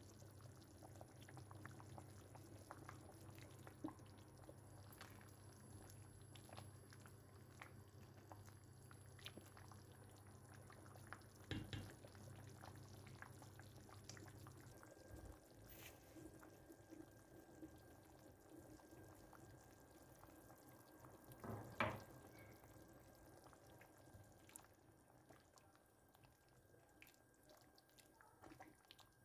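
Faint bubbling and popping from a pot of tomato and pepper sauce simmering, with two soft knocks and a low hum that stops about halfway through.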